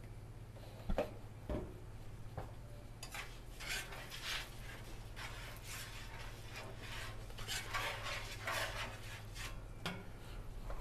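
Metal spatula scraping across the flat steel top of a Blackstone griddle in repeated strokes, spreading olive oil over the cooking surface. There are two sharp knocks about a second in.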